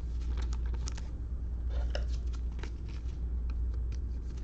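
Trading cards being handled and flipped through: a run of light, irregular clicks and rustles as the cards slide against each other, over a steady low hum.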